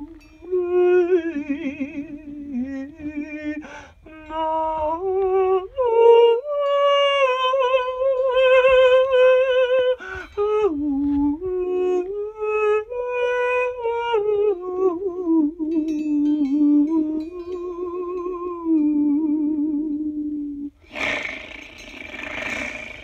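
A person humming a wordless, wavering melody, holding notes with a vibrato and sliding between them. Near the end it gives way to a brief harsh hiss.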